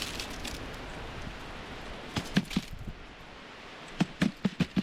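Short sharp knocks and clicks from handling gear: three about two seconds in and five or six in quick succession near the end, over a steady hiss of wind and surf.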